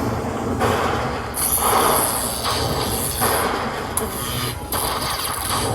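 Lightning Link Moon Race slot machine sounds over casino floor noise, changing in short blocks about every second as the reels spin.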